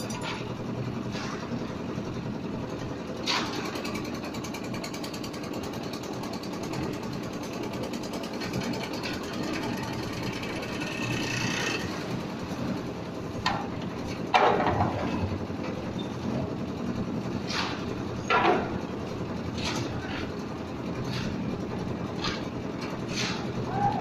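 Concrete mixer and skip-hoist machinery running with a steady drone, while the hoist hauls a bucket of concrete up the ramp. Sharp metallic clanks and a few shouted calls come through over it, the loudest a little past the middle.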